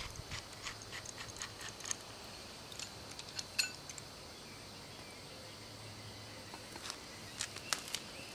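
Faint scattered metal clicks and light taps as a crank puller is unthreaded from a freshly removed bicycle crank arm, over a quiet outdoor background. The clicks fall mostly in the first few seconds, with a brief cluster again near the end.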